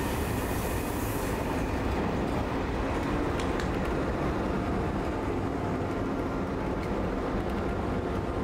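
Works train passing close by: the last ballast hopper wagons and then two G 2000 diesel locomotives at the tail, wheels rumbling over the rails and diesel engines running. The sound holds steady.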